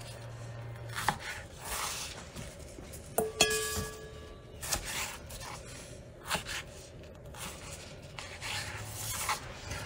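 Chef's knife slicing slightly frozen chicken breast on a plastic cutting board: scraping strokes of the blade through the meat with occasional knocks of the knife on the board, and a brief ringing tone a little past three seconds in.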